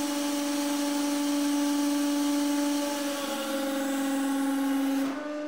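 150-ton hydraulic press's electric pump running steadily with a strong hum and hiss as the ram comes down on a copper-steel-copper stack. About three seconds in its pitch drops slightly as the ram meets the metal and the load builds, and just after five seconds the hiss cuts off abruptly.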